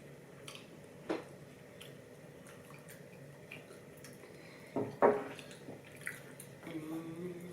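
Sushi-eating sounds: soft wet chewing and squishing, with a few sharp clicks of utensils or packaging. The loudest click comes about five seconds in, and a brief low hum follows near the end.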